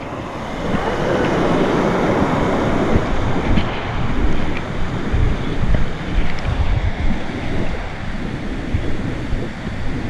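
Rushing water of a small cascade in a rocky stream, heard through an action camera's microphone with irregular low rumbling from wind and handling. The splashing hiss thins a little after about three seconds.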